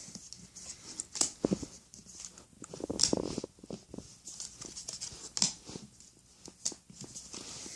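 Foil booster-pack wrapper crinkling and tearing open, with the cards inside rustling as they are handled: an irregular run of sharp crackles and rustles.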